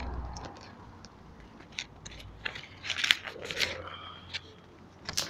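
A paper leaflet being handled and its pages turned: irregular crackling, rustling and small clicks, with a denser cluster about three seconds in.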